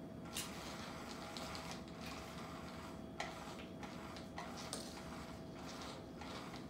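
A small plastic ball rolling and rattling across a hardwood floor as a cat bats at it, with a few sharp clicks.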